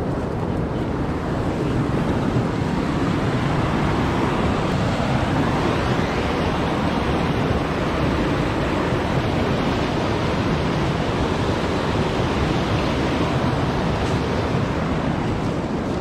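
A river rushing steadily: an even, unbroken sound of flowing water.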